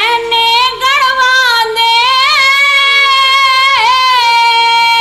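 A woman singing one long, high held note that wavers and bends slightly in pitch, a Haryanvi ragni being opened, with a harmonium drone faintly underneath.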